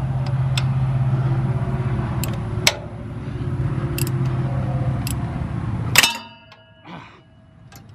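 Scattered metal clinks of a ratchet wrench on a bolt at the front of a Cummins diesel engine, over a steady low hum. About six seconds in comes one loud metallic clang, and the hum cuts off suddenly.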